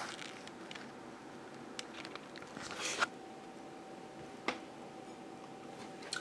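Faint handling noise at a webcam: soft rustling and a few sharp clicks, the clearest about three and four and a half seconds in, over a steady faint hum.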